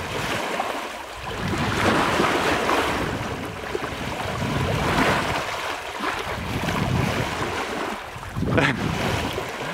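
Sea water rushing and splashing around a person in a harness being towed through the water alongside a moving sailing yacht, swelling and easing in surges every couple of seconds, with wind on the microphone.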